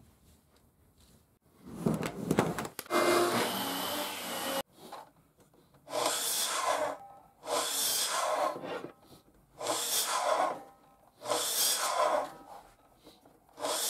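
Miter saw crosscutting maple strips into short blocks: five short cuts, each about a second long, about two seconds apart. Before them come some clatter and a longer rush of noise that stops abruptly.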